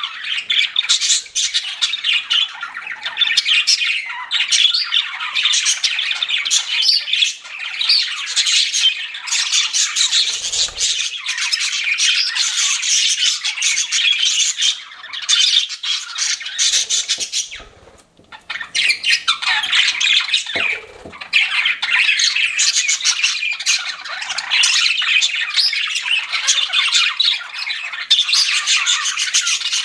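Pet budgerigars chattering and chirping nonstop, a dense warble of many overlapping calls, with a short lull about eighteen seconds in and a few low thumps.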